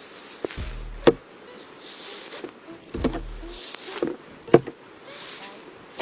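Slime being squeezed and stretched by hand: sharp pops and clicks about once a second, with airy hissing squelches between them and a couple of low handling thumps.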